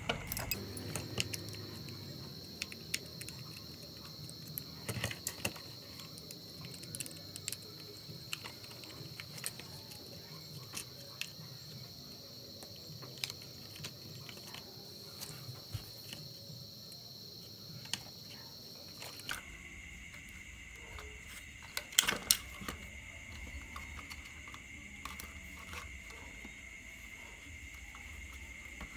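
Scattered small clicks and knocks of hard plastic parts of an RC dump truck's chassis being handled and pried apart, with a brief cluster of louder clicks about two thirds of the way through. A steady high-pitched thin tone sounds behind throughout.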